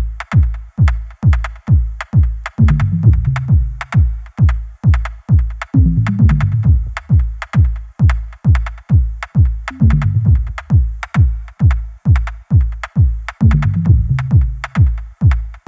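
Electronic dance music soundtrack with a fast, steady drum-machine kick beat and sharp hi-hat ticks, and a deep bass line that comes in for about a second every few seconds.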